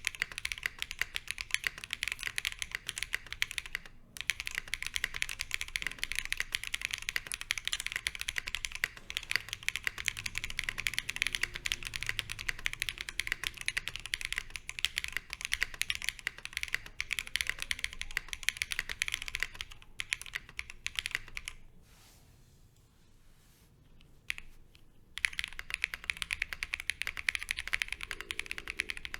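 Continuous fast typing on a Fox Lab Sunset 80 mechanical keyboard with lubed Zaku switches, a polycarbonate plate and PBT keycaps, a dense run of key clacks. The typing stops for about three seconds near three-quarters of the way through, then resumes with plate foam added to the case foam.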